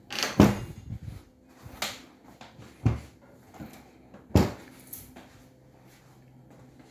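Kitchen cabinet doors being opened and shut: a run of knocks and clacks, about five in all, the loudest about half a second in and again about four and a half seconds in.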